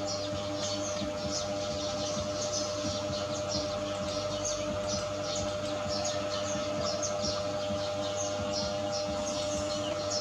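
Small birds chirping continuously, many short high chirps a second, over a steady low hum.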